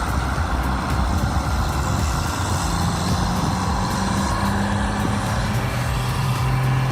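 1997 Kenworth truck's diesel engine running as the truck drives. The steady engine note steps down to a lower pitch about five seconds in.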